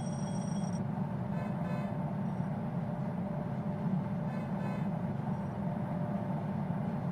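Steady rumble of a train running past, with a thin high whine in the first second.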